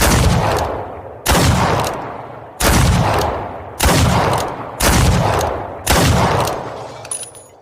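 Revolver gunshot sound effect: six shots a little over a second apart, each with a long echoing tail. Near the end come light metallic clicks with a thin high ring.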